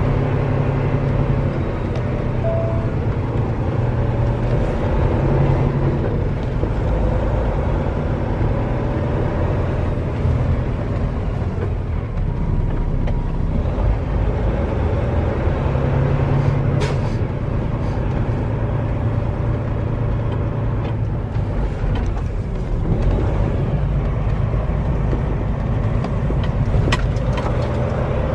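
Semi-truck diesel engine running at low speed, heard from inside the cab as the truck rolls slowly. The engine note swells and eases a few times.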